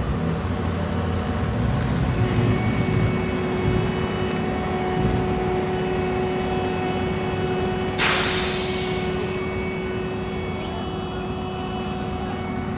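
Heavy diesel road-construction machinery running steadily, with a low rumble and a faint steady whine. About two-thirds of the way through comes a sudden loud hiss of released air that fades over a second or so, the sound of a truck's air brakes.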